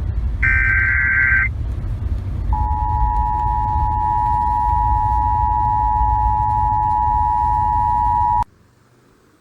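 NOAA Weather Radio alert signal received over a radio: a short burst of warbling SAME digital header data, then the steady 1050 Hz Warning Alarm Tone held for about six seconds before cutting off suddenly, over a low hiss and rumble of reception static.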